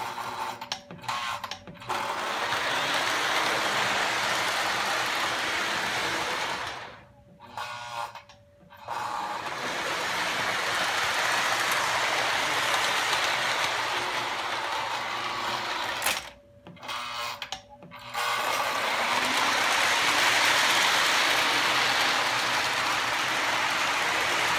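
Lionel O-gauge GP9 model diesel locomotives running on three-rail track: a steady mechanical whir of electric motors, gears and wheels on the rails. The whir drops away twice for about two seconds, leaving a faint steady hum.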